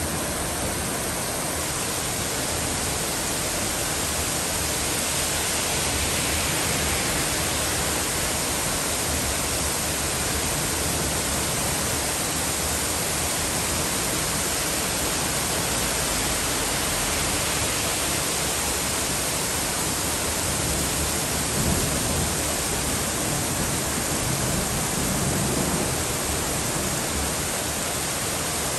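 Heavy rain pouring down steadily, a dense, even hiss of drops.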